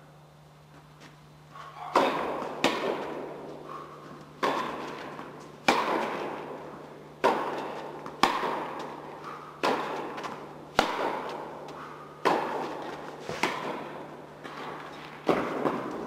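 A tennis rally in an indoor hall: the ball is struck by rackets and bounces on the court, each hit a sharp pop with a long echo off the hall. The hits start about two seconds in and come roughly once a second, some in quick pairs.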